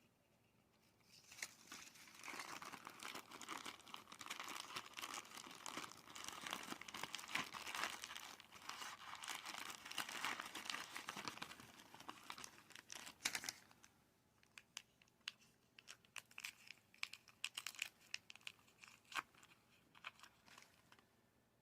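Plastic packaging crinkling and tearing as a blind-bag toy pack is unwrapped by hand, dense and continuous for about twelve seconds, then thinning to scattered crackles and small clicks.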